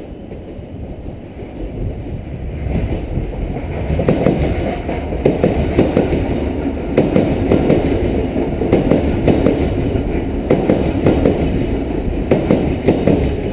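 Electric commuter train rolling slowly along the adjacent track, a heavy rumble with repeated clacks of the wheels over rail joints. The rumble swells about three seconds in and stays up.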